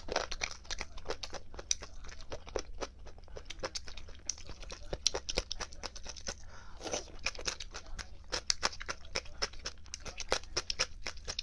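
Close-up chewing of chicken with crunchy cartilage: a dense, irregular run of wet crunches and clicks as the pieces are bitten and ground.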